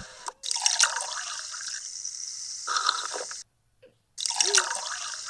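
Water running and splashing in a steady hiss. It breaks off into silence about three and a half seconds in and starts again under a second later.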